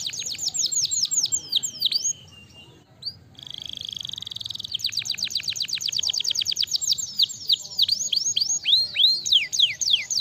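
White domestic canary singing a fast, high song of rapid trills made of quick falling notes. There is a short break about two seconds in, then a steady rolling trill, then long runs of fast falling notes that slow into longer downward sweeps near the end.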